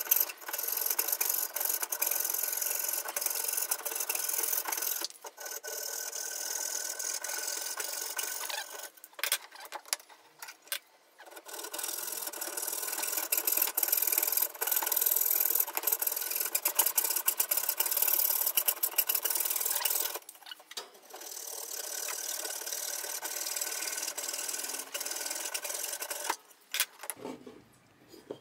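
Hand hacksaw cutting through a pine board in steady back-and-forth rasping strokes. The sawing breaks off for a few short pauses and stops near the end.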